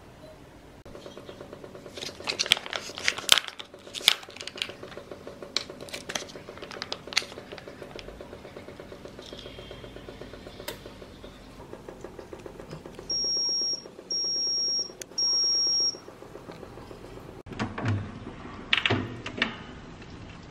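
A kitchen appliance hums steadily under scattered clinks and knocks of dishes and utensils. The hum stops, then three long, high-pitched beeps sound about a second apart: an appliance signalling the end of its cycle. A few more clatters follow near the end.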